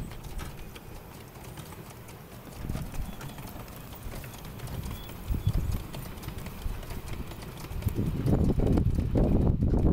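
Miniature railway train passing, its wheels clicking in a steady rhythm over the rail joints. A louder low rumble comes in over the last two seconds.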